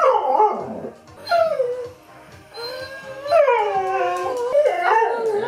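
Husky 'talking': three drawn-out vocal calls that slide up and down in pitch, the last and longest taking up most of the second half.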